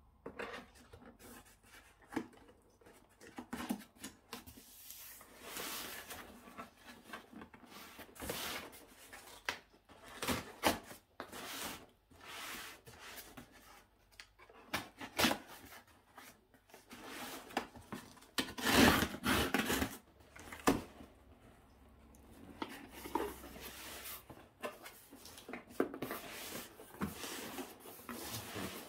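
Hands handling packaging: irregular rustling, scraping and rubbing of cardboard and plastic wrapping, broken by short clicks and knocks, with the loudest stretch of rustling about two-thirds of the way through.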